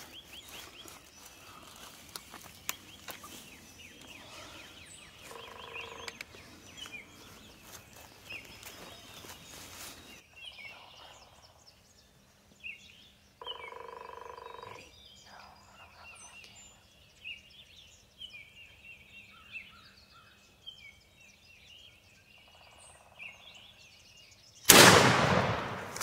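Wild turkey gobbling faintly a few times among songbird calls, then a single loud shotgun shot near the end as the hunter fires at the bird.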